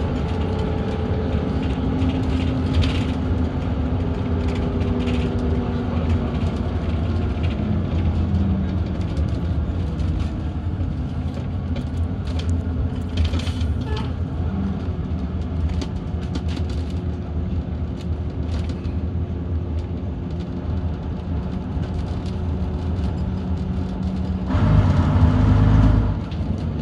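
Leyland Atlantean double-decker bus with an Alexander body, heard from inside the saloon while under way. Its rear-mounted diesel engine runs with its pitch stepping up and down, over scattered body rattles. Near the end a louder stretch of engine noise lasts about a second and a half.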